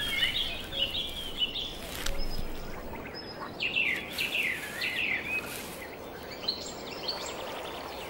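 Wild birds chirping in short clusters of quick bending high calls, near the start and again midway, over a soft steady outdoor background hiss.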